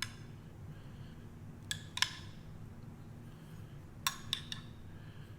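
A metal spoon clinking against a glass jar of Alfredo sauce while scooping it out: a few sharp clinks, one at the start, a pair about two seconds in and a cluster about four seconds in, over a faint steady low hum.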